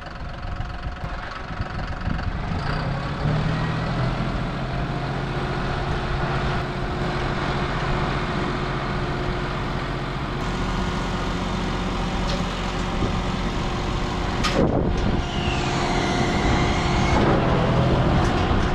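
Tractor engine running steadily just after starting on a battery that had held its charge. A sharp click sounds about three-quarters of the way through.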